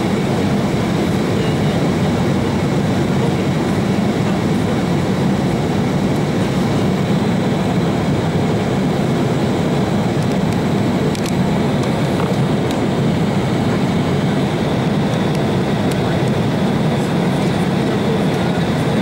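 Steady cabin noise of an Embraer 190 airliner in flight: the General Electric CF34-10E turbofans' low drone mixed with the rush of airflow, with faint steady high-pitched tones over it.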